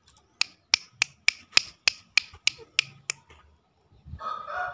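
A run of about eleven sharp clicks, roughly three a second, then a green junglefowl begins to crow near the end.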